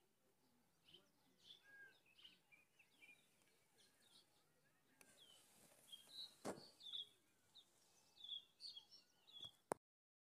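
Faint chirps and short calls of several small birds, scattered and overlapping. A single knock sounds about two-thirds of the way through, and a click comes just before the sound cuts out near the end.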